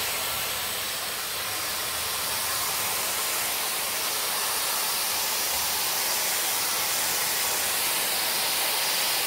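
Webeauty 5-in-1 hair styler switched on, its high-speed motor blowing air through the auto-wrap curling barrel as a lock of hair is wound into a curl: a steady rushing hiss that holds level.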